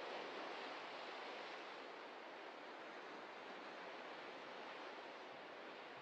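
Ocean surf washing over a rocky shoreline: a steady rush of waves, a little louder in the first second or so and then settling.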